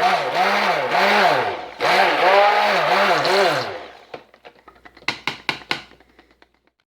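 Stick blender running in soap batter, its pitch rising and falling about twice a second as it works, stopping about four seconds in; a run of light clicks and knocks follows.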